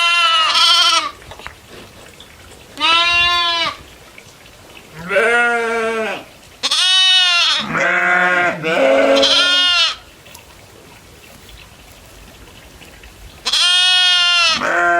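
Goats bleating: a string of short, pitched bleats that rise and fall in pitch, some overlapping in the middle, then a pause of a few seconds before a last bleat near the end.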